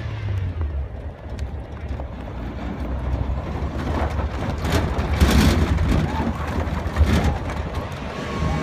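Wind buffeting a moving camera's microphone, a steady low rumble with louder gusts about five seconds in and again about seven seconds in, while horses gallop on sand.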